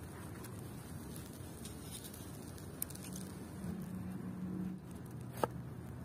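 Quiet steady low hum with soft handling of food on a wooden cutting board, a small tick about halfway, and a sharp tap near the end as the knife is pushed down through the burger onto the board.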